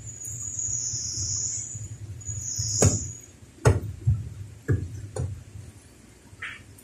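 Hand work on a pickup truck's door trim: two high hissing rubs in the first three seconds, then a handful of sharp knocks, over a steady low hum.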